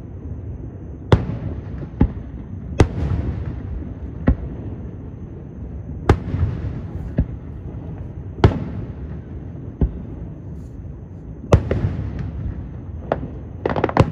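Aerial firework shells bursting, about ten sharp booms spaced a second or two apart over a low rumble, with a quick burst of crackling near the end.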